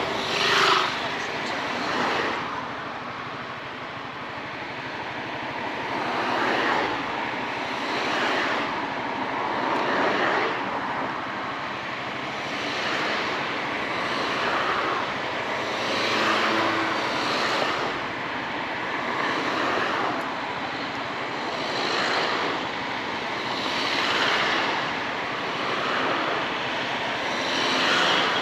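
Riding noise from a Honda ADV 350 scooter moving through traffic: a steady rush of wind and engine that swells every couple of seconds.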